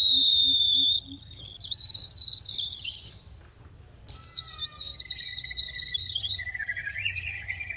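Small bird whistling high, thin notes: a held note, then a warbling rising phrase, a brief pause, and long drawn-out whistles with a second, lower note joining in.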